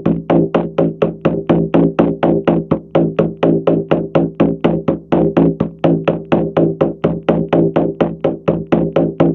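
Shamanic journey drumming: a drum beaten in a steady, fast, unchanging rhythm of about four to five beats a second, each beat ringing with a low tone. It is the monotonous beat meant to carry the listener into a theta state.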